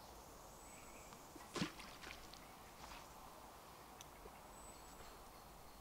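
A carp rod being cast out: one short swish about one and a half seconds in, followed by a few faint ticks. Otherwise very quiet.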